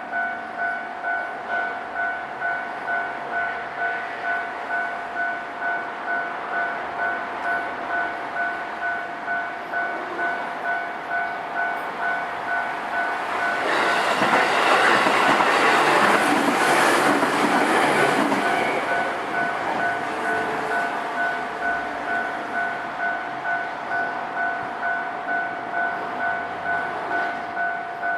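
Japanese railway level-crossing warning bell ringing steadily at about two dings a second. About halfway through, a JR Osaka Loop Line train passes over the crossing, its rumble swelling and fading over several seconds.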